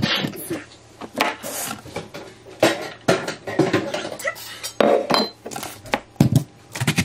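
Clatter of kitchen things being set out on a counter: irregular knocks and clinks of a jar, a knife and a steel mixing bowl being put down and moved.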